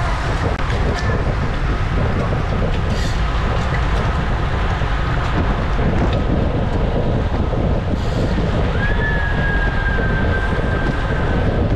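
Wind buffeting a bike-mounted camera's microphone as a road-race pack rides at about 35 km/h: a steady rushing noise. A faint, thin steady whine starts about 9 seconds in and lasts a few seconds.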